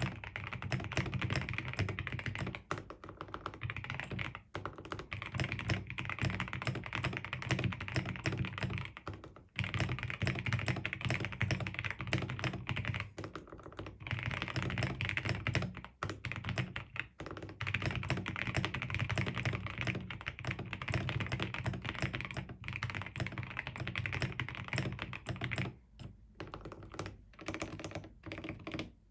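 Fast, continuous typing on an RK61 mechanical keyboard with Gateron Cap Gold V1 linear switches, lubed with 205g0, under XDA keycaps. The board is foam- and tape-modded. The typing breaks off in brief pauses a few times.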